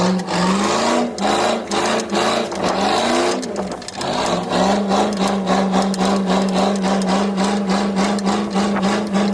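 Performance car's V8 engine revving hard and held high, its pitch wavering and climbing for the first few seconds, dipping briefly, then holding steady at high revs with a fast pulsing beat.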